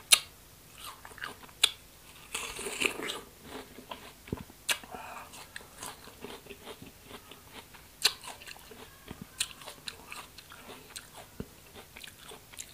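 Close-up biting and chewing of a crisp, juicy rose apple (wax apple): a sharp crunch of a bite right at the start, then wet, crunchy chewing with scattered crisp clicks.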